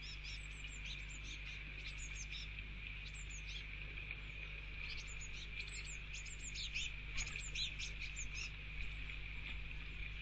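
Blue tits calling with many short, high chirps, busiest in the first few seconds and again in the middle, thinning near the end. A steady high-pitched tone and a low hum run underneath.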